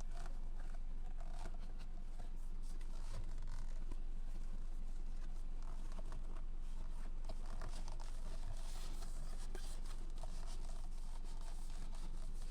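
Hands working on a steering wheel's cover: irregular scratching, crinkling and small clicks, busier in the second half, over a steady low hum.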